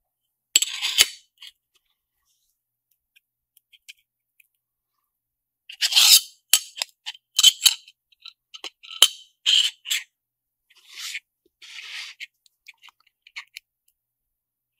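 The magnesium-aluminium halves of an mSATA SSD enclosure being handled and the top cover fitted onto the base. There is a short scrape about half a second in, then an irregular run of clicks, taps and scrapes from about six seconds on.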